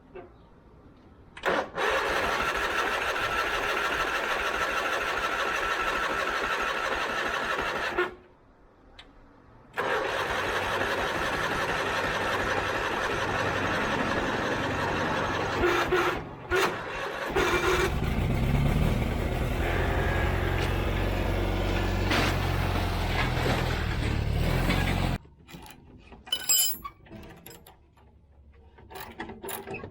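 John Deere 317 riding mower's starter cranking the engine twice, for about six and seven seconds. At the end of the second try the engine fires and runs unevenly for about seven seconds, then cuts out suddenly: it will not stay running.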